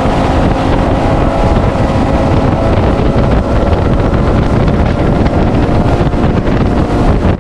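A bass boat's outboard motor running at speed across the lake, with heavy wind buffeting the microphone. It cuts off suddenly at the end.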